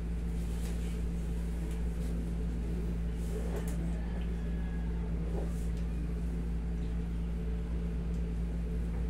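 Steady low hum of a window-type air conditioner running, even throughout, with a few faint soft sounds from hands working on the leg.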